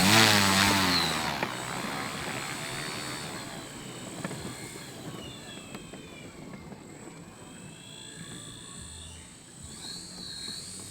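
Radio-controlled scale warbird model plane making a fast, loud pass with its motor and propeller pitch dropping sharply as it goes by. The whine then fades and wavers up and down as the plane turns away in the distance.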